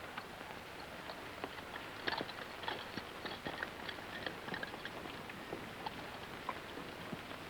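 Horses' hooves clopping irregularly at a walk or trot over a steady hiss.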